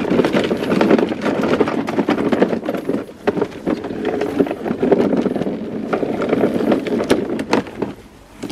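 Greenworks electric lawn mower running and being pushed through dense weeds and dandelions, a loud choppy clatter of many short knocks as stems hit the blade; it stops near the end.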